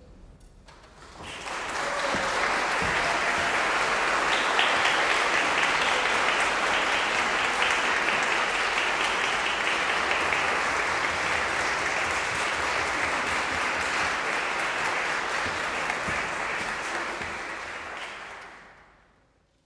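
Audience applauding in a reverberant hall. The applause starts about a second in, as the last of the string ensemble's chord dies away, holds steady, and fades out near the end.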